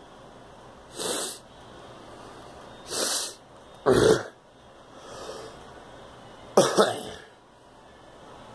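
A girl coughing, several separate coughs a second or two apart, the sharpest about four seconds in and a double cough near the end.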